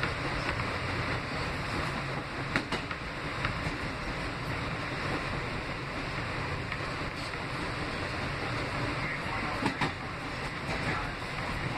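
NYC Subway R160B subway car running, heard from inside the car: a steady rushing rumble of the moving train, with a couple of sharp clacks, about two and a half seconds in and again near the end.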